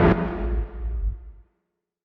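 Horror transition sound effect: a deep rumbling swell with held eerie tones, ending in a sharp hit that then decays and cuts off about one and a half seconds in, leaving silence.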